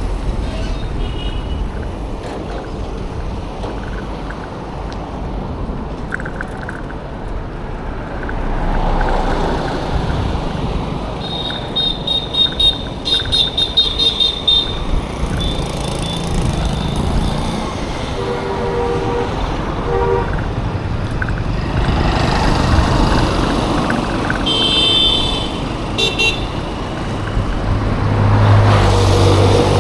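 Road traffic with vehicles passing and repeated horn honking: rapid strings of short, high-pitched beeps in the middle and again about two-thirds through, and a few lower honks in between. Near the end a vehicle's engine passes close with a strong low hum.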